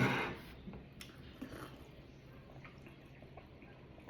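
Faint scattered clicks and soft handling sounds of something being opened.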